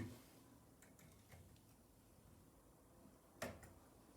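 Near silence broken by a few faint ticks and one sharper click about three and a half seconds in: small handling noises of a wire being fitted to an electrical outlet's terminal.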